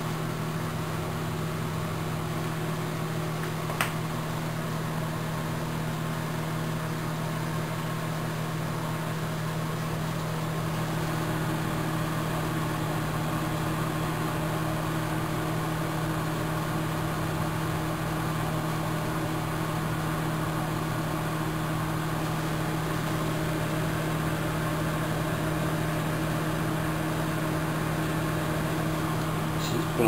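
Microwave oven running: a steady hum from its transformer and cooling fan, with a single click about four seconds in and the hum growing a little fuller about ten seconds in. It is heating a crushed aluminium beer can to melt it.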